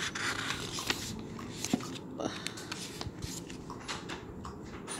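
Pages of a thick paperback novel being flipped and handled: paper rustling with many short flicks.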